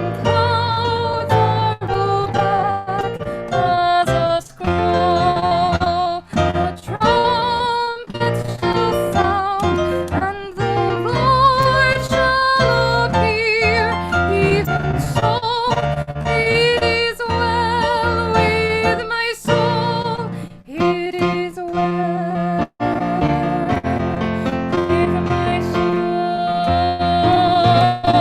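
A song: a singer's voice with vibrato over instrumental accompaniment.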